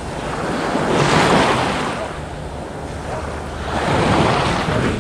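Small waves washing onto a pebble shore, rising and falling twice, about three seconds apart.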